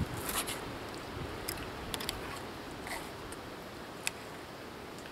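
Knife and fork cutting grilled meat on a plastic board: a few light, scattered clicks and scrapes of the cutlery.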